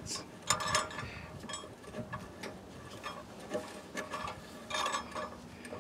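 Light, scattered metallic clicks and ticks as a new outer tie rod end is turned by hand onto the left-hand-threaded inner tie rod of a 2012 Ford F-250's steering linkage.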